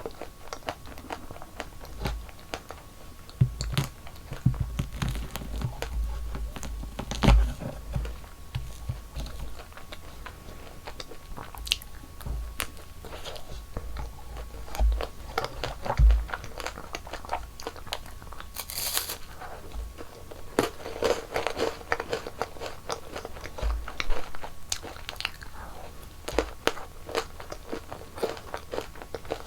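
Close-miked biting and chewing of crunchy sweets, with many crisp crunches and soft mouth thumps at an uneven pace.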